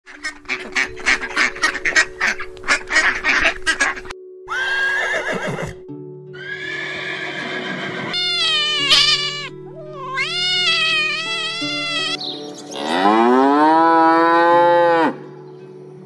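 Farm animal calls in quick succession over light background music: a flock of mallard ducks quacking rapidly, then several separate calls, ending with a long cow moo that rises and then holds.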